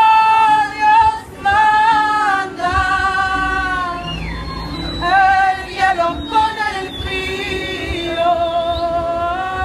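A woman singing lead vocal live, long held notes that waver slightly, in phrases broken by short pauses for breath, over quiet band accompaniment.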